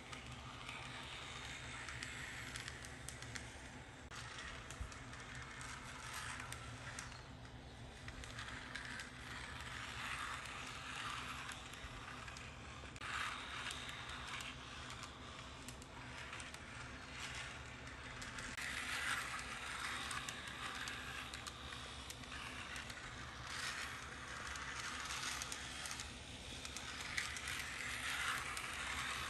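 Model tram running along the diorama's track: a small electric motor and wheels on the rails making a light, steady clicking rattle that swells and fades several times as the tram comes past.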